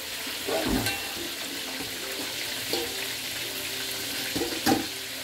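Chicken frying in hot oil in a pot, a steady sizzle. Two sharp clicks cut through it, about a second in and again near the end.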